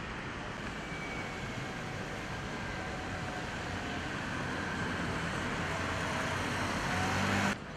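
Street traffic: cars passing on a wet road with steady tyre noise, growing louder toward the end and cutting off suddenly just before the end.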